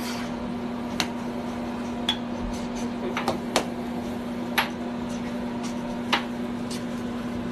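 Air hockey table's blower fan running with a steady hum, with about six sharp plastic clacks as the puck is knocked about by a mallet and against the table.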